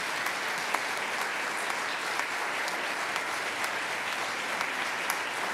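Audience applauding: many people clapping steadily, with a few louder single claps standing out.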